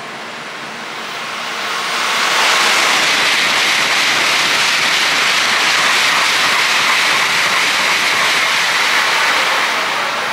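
An N700-series Tokaido Shinkansen bullet train passing through the station at high speed without stopping: a loud rushing noise that swells over about two seconds, holds steady, and starts to fade near the end.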